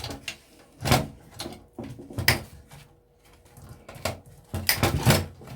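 Hand-tool dismantling of a Sky satellite box: wires being cut and metal parts handled, heard as a string of sharp clicks, snips and clunks, with a close cluster of them near the end.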